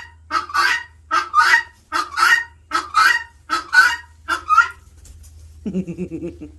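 Helmeted guineafowl giving its loud, harsh alarm call, a rapid run of repeated cries about three a second that stops about five seconds in.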